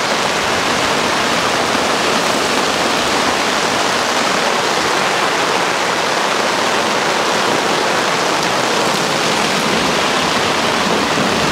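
Heavy thunderstorm rain pouring down, heard from under a pop-up canopy as a loud, steady hiss.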